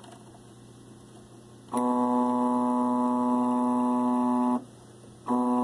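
Stepper motor of a homemade 3D printer driving an axis, giving a steady single-pitched hum. It starts about two seconds in, stops for under a second, then starts again for a second move.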